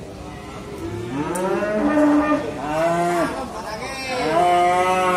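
A cow mooing close by: three calls, the last one the longest.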